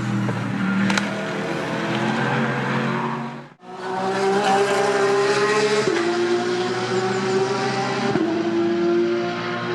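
GT race car engines running hard, in two back-to-back clips split by a sharp cut about a third of the way in. In the second clip the engine note holds steady and steps down in pitch twice.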